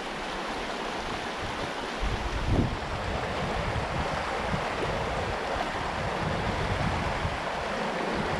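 A small mountain stream rushing steadily over rocks in a shallow riffle. A low, uneven rumble joins it about two seconds in.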